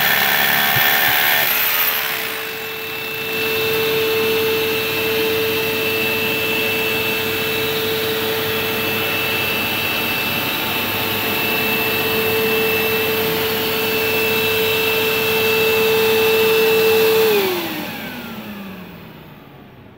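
A DeWalt rotary hammer drilling concrete stops about two seconds in, leaving a DeWalt DWV901L dust extractor running with a steady hum. Near the end the extractor is switched off and its motor winds down in a falling whine.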